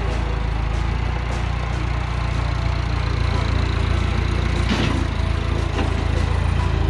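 Massey Ferguson 184-4 tractor engine running steadily as the loader tractor drives past close by. A brief knock sounds about five seconds in.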